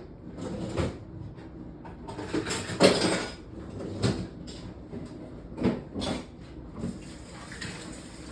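Kitchen clatter: a series of knocks and clunks from things being handled, the loudest a cluster about three seconds in.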